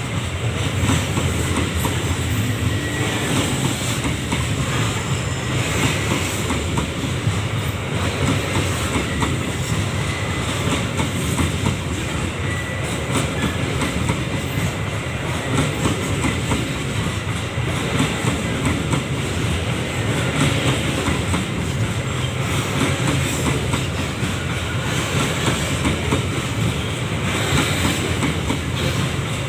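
Coal train wagons rolling past on the rails: a steady rumble with many fast clicks from the wheels.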